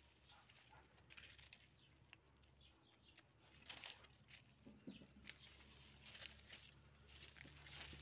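Faint rustling and crackling of dry chayote leaves and vines brushed aside by hand, with scattered soft snaps, more of them in the second half.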